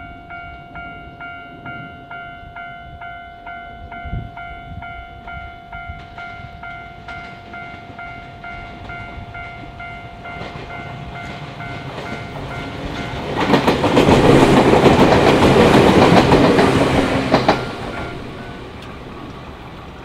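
Japanese level-crossing warning bell ringing with its steady repeated "kan-kan" tone while the barriers are down. About halfway through, an electric train passes over the crossing: wheels clattering on the rails, loud for about four seconds, then fading away.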